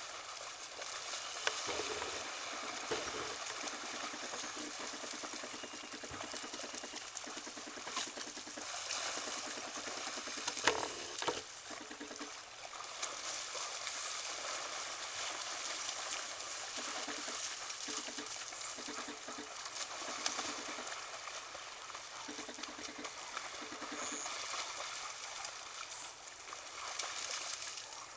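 Dogs wading and splashing in shallow pond water over a steady outdoor hiss, with a few sharp clicks, the loudest about eleven seconds in.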